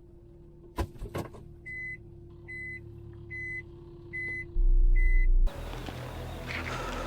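Two clicks, then an electronic beeper sounding five evenly spaced beeps, about one every 0.8 seconds, over a steady low hum. A loud low rumble follows, then a change to a hissy, busier background.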